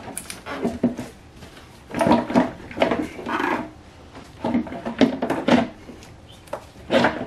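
Plastic M50 intake manifold knocking and scraping against the engine as it is set into place by hand, in several short bouts of clunks and rubbing.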